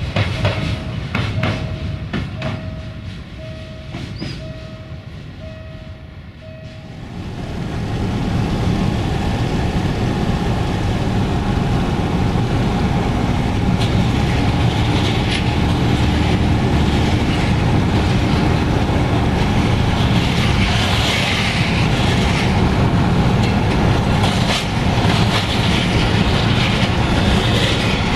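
Loaded freight wagons rolling past with clicks of wheels over rail joints, and a tone that repeats a little more than once a second. From about seven seconds in this gives way to the steady noise of a car driving alongside the moving freight train.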